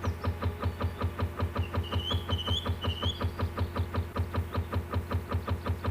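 Steam locomotive running sound effect: steady, even chugging at about five beats a second. A faint wavering high tone comes in about two seconds in.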